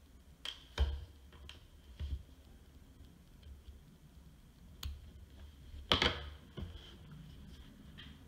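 Light clicks and taps of steel tweezers on a tiny axle pin and brass wheel weight while the pin is set into a small RC axle. The clicks are scattered and irregular, with the two loudest about a second in and about six seconds in.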